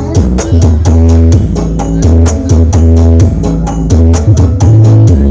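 Loud music played through a large PA sound system, with heavy bass notes and a fast, steady percussion beat.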